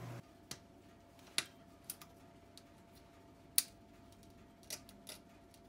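A few sharp, irregular metal clicks and taps, the loudest about three and a half seconds in: a small pick tool prying at the internal retaining clip under the pushed-down reservoir cap of a Fox Float Evol ATV shock, the clip not yet coming free.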